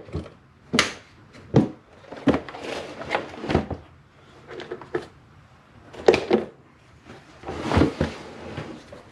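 Hard plastic carrying case of a Pico 4425A oscilloscope kit being opened and handled: two sharp clicks near the start as its latches snap open, then a run of knocks and scuffs as the lid is lifted and the case is shifted about.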